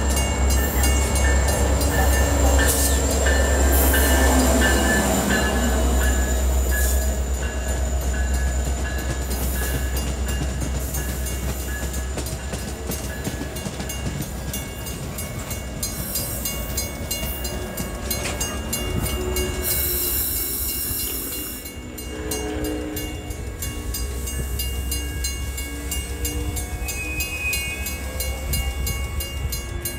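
Metra commuter train passing close by: the diesel locomotive goes by with a falling pitch a few seconds in, then the bilevel gallery cars roll past with a steady low rumble and wheel-on-rail noise. A brief hiss comes about two-thirds of the way through.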